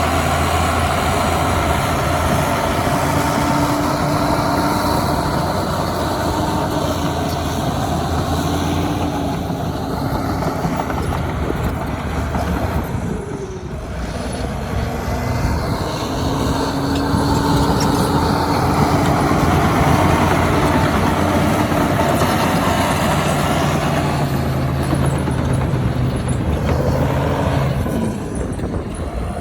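Heavy diesel earthmoving machinery running and working, its engine note shifting in pitch as the throttle and load change, with a brief drop in level about halfway through.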